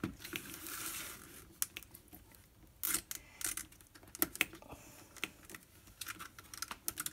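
Hands handling a Flow Hive Flow Frame's plastic parts and its thin wire: a brief rustle in the first second or so, then scattered small clicks and taps of plastic and wire.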